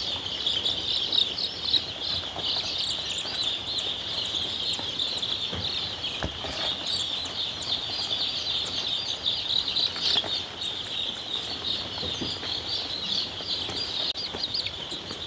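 A large flock of young chickens peeping continuously, a dense chorus of many high-pitched chirps at once. There are a couple of faint knocks about six and ten seconds in.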